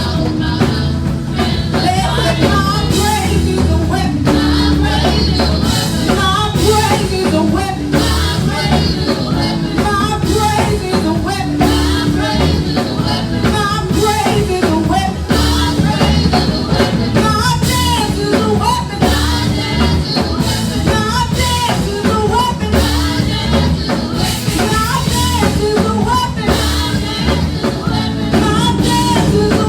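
Worship music: singing over a band with a drum kit, playing steadily throughout.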